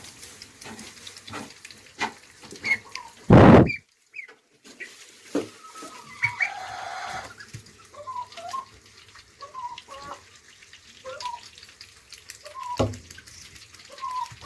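Ducklings peeping now and then, short chirps, among steady small wet clicks and water dabbling. A brief loud burst of noise comes about three and a half seconds in, and the sound cuts out for a moment right after it.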